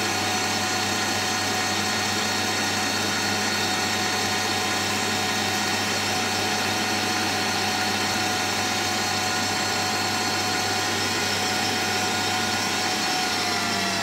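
Electric stand mixer running steadily at speed, whisking meringue as small pieces of butter are added for buttercream. Near the end it is switched off and the motor whine falls in pitch as it winds down.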